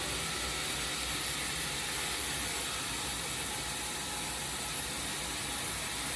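Sawmill machinery running with a steady, even hiss and no distinct knocks or changes.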